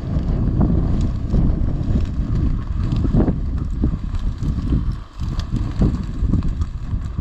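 Wind buffeting the microphone in a steady low rumble, with scattered rustling and crunching as someone walks through dry field grass.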